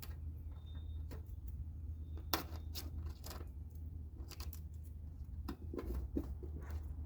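Scattered small clicks, clinks and knocks of hand work on a car's tail-light housing: bolts, bulbs and tools being handled, over a steady low hum.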